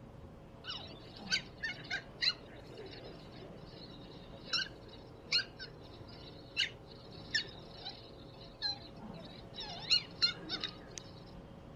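A dachshund puppy yapping at its own reflection in a mirror: about fifteen short, high-pitched yips, some single and some in quick runs of three or four.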